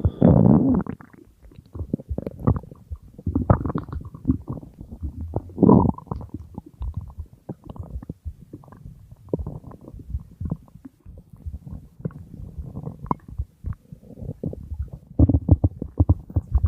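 Stomach growling and gurgling: a steady run of low bubbling pops and rumbles, swelling louder near the start, at about four and six seconds, and again near the end.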